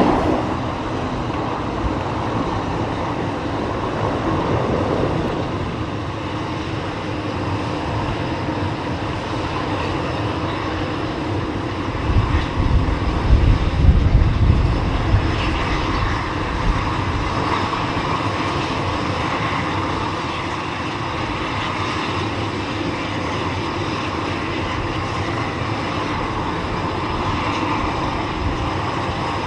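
De Havilland Dash 7's four Pratt & Whitney PT6A-50 turboprops running steadily at ground idle as the propellers go to feather after parking. A low rumble swells for a few seconds midway.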